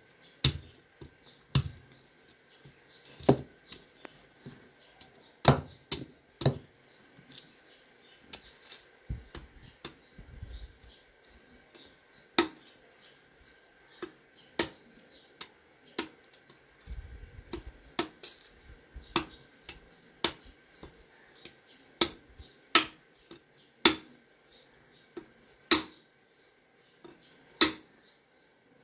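A blade chopping into a coconut: sharp, irregular strikes, roughly one every one to two seconds, over a faint steady high tone.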